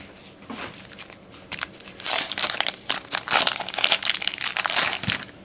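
Crinkling and rustling of trading-card packaging being handled, in several irregular bursts, loudest in the middle and latter part.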